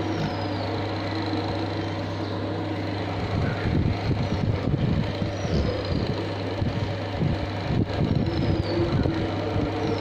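A steady low hum, with an irregular rustling of a hand rubbing a dog's fur starting about three seconds in.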